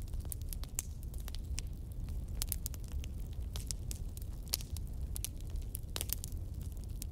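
Newspaper wrapper crinkling and crackling in the hands as a samosa is unwrapped and bitten into: scattered short, sharp crackles over a steady low rumble.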